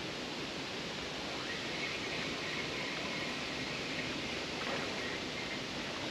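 Steady outdoor background noise, an even hiss with no distinct event. A faint high thin tone sits in it for a few seconds around the middle.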